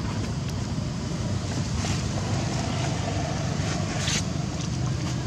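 Steady low rumbling background noise, with faint brief rustles about two and four seconds in.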